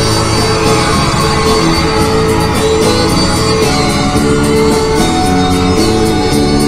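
Music: an instrumental passage of a song, with held notes over a stepping bass line and a steady beat.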